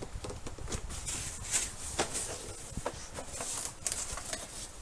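Handling noise: scattered light clicks and knocks with brief rustles.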